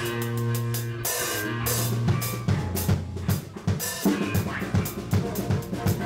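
A heavy rock band playing in a rehearsal room. Electric bass and guitar hold low notes, then the drums come in about two seconds in with fast, hard hits under the riff.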